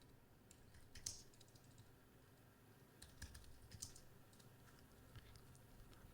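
Faint typing on a computer keyboard: scattered key clicks, with a quicker run of keystrokes about three to four seconds in.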